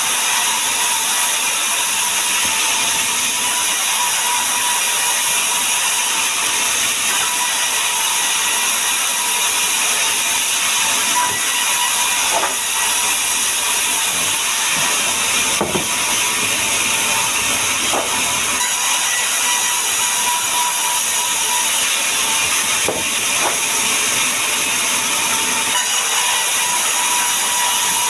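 Woodworking power machine running steadily on sengon wood, a dense even hiss with a faint steady tone, and a few faint knocks around the middle.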